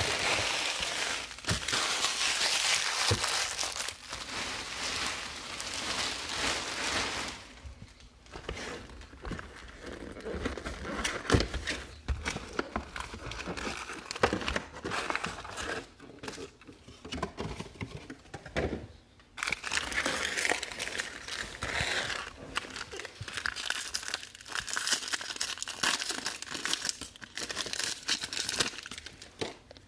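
Crinkling and tearing of trading-card packaging: a Topps jumbo box's cardboard is torn open and its foil card packs rustle and crackle as they are handled, with a foil wrapper torn open near the end.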